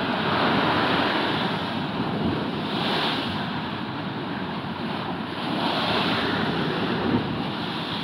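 Storm surf breaking and washing up close by: a continuous rush of churning water that swells louder about every three seconds as each wave surges in.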